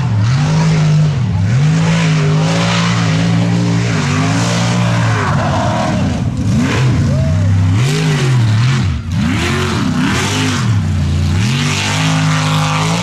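Mega truck's engine at full throttle on a dirt race course. It runs at high revs at first, then revs up and down in quick swoops through the second half as the truck races over the dirt hills.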